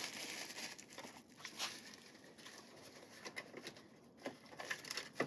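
Faint, scattered small clicks and rustling from a pocketknife being handled and turned over in the hands.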